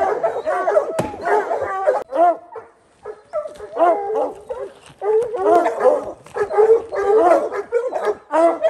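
Hunting hounds baying over and over in loud, bending calls with short gaps, the bay of hounds holding a treed mountain lion.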